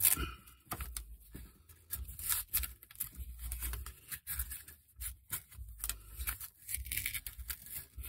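Velcro cable tie being cinched and pressed closed around a bundle of audio cables, with irregular scratchy rasps and the rubbing and clicking of the cables being handled.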